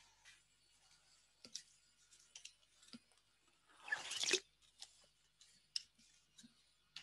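Faint scattered clicks and small handling noises picked up through a video call's open microphones, with one brief rustle about four seconds in.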